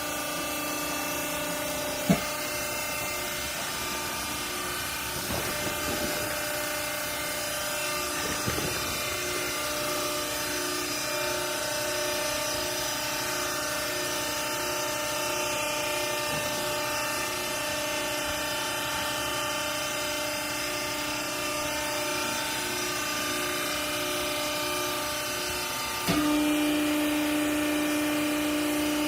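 Hydraulic baling machine running, a steady mechanical hum from its motor and pump with a sharp click about two seconds in. About three seconds before the end the hum steps up louder, with a stronger, lower tone.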